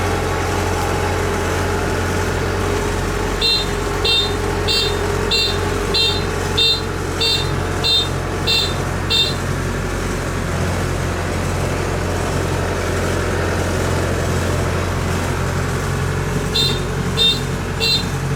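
Kubota DC-93 combine harvester's diesel engine running steadily while the machine manoeuvres, with its warning beeper sounding a run of about ten short, high beeps a few seconds in and starting again near the end.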